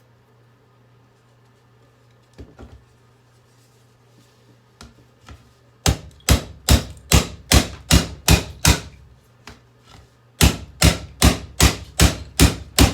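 A hairdryer being struck hard over and over to break it apart: two runs of rapid, even blows, about two and a half a second, with a short pause between them. A few faint knocks come first.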